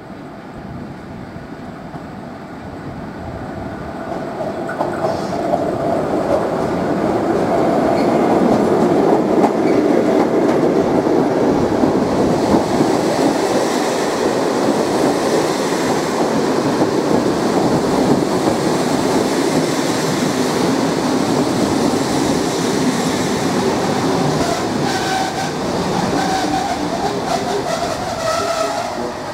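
Electric-locomotive-hauled passenger train arriving alongside a platform: wheels clattering over the rail joints as the coaches roll past. It builds up over the first several seconds and eases toward the end, with a few faint squeals near the end.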